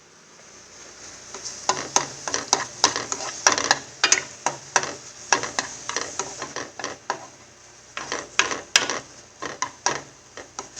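A cooking utensil stirring food in a frying pan, knocking and scraping against the pan irregularly, two or three strikes a second, over a faint sizzle.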